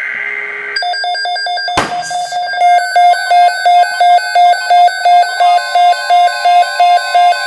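Electronic alert tone beeping in rapid, evenly spaced pulses, about three a second, with a click about two seconds in.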